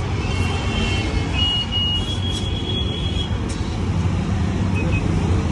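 Steady road traffic noise, a continuous low rumble of passing vehicles, with a few faint high tones in the first three seconds.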